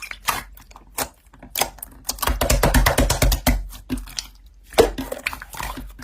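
Slime being squeezed and pressed by hand, giving a rapid run of crackling clicks and pops, heaviest in the middle.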